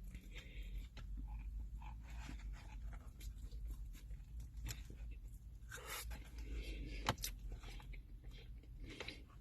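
Faint rustling and scraping of a sandwich and its paper wrapper being handled while eating, with a sharp click about seven seconds in.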